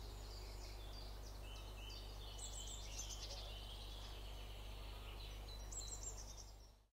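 Wild songbirds singing in woodland, one bright phrase of quick falling notes coming back about every three seconds with softer song between, over a steady low rumble. The sound fades out at the very end.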